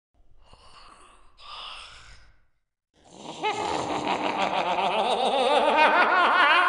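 Goblin creature vocal sound effect: two short, quiet breathy hisses, then about three seconds in a loud, long voiced cry with a fast quavering tremble, rising slightly in pitch.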